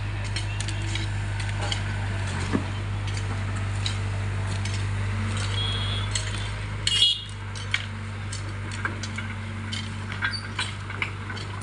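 Excavator's diesel engine running steadily, with scattered clinks and knocks of metal and stone as it digs up an old road surface. A louder clank comes about seven seconds in.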